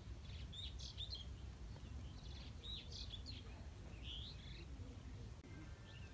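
Birds chirping: several short calls in three small groups over a steady low rumble.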